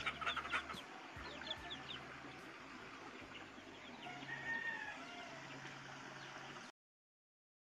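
Chickens clucking and chirping: a cluster of short high calls just at the start, more around two seconds in, and a longer call around the middle. The sound cuts off suddenly near the end.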